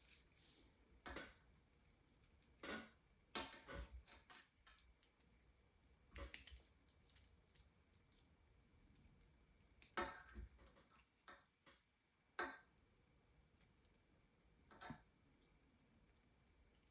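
Irregular short clicks and taps from a 4-inch quick-adjust mini pliers wrench being adjusted by its push button and fitted onto a nut, spaced out with near quiet between them.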